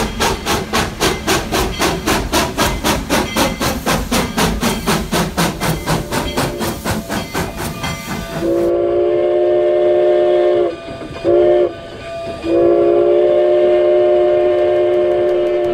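Steam locomotive working hard, its exhaust chuffing steadily at about four beats a second. Then a chime steam whistle sounds a long blast, a short one and another long one.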